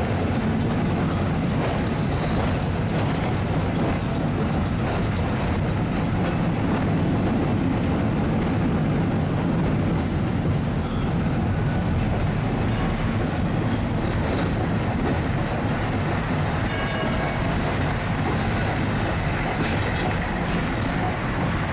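Heritage electric tram running along its track, a steady rumble of wheels on rails with a few faint clicks.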